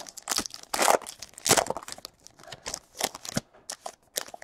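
A stack of baseball trading cards being handled and flicked through: an irregular run of rustles and sharp snaps, loudest about one and one and a half seconds in.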